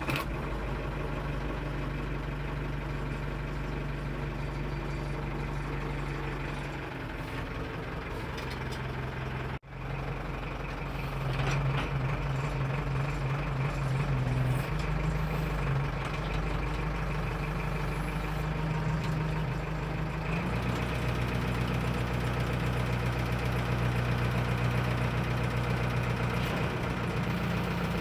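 Backhoe loader's diesel engine running, heard from inside the operator's cab, with a steady low drone. It steps up louder about eleven seconds in and changes pitch again about twenty seconds in.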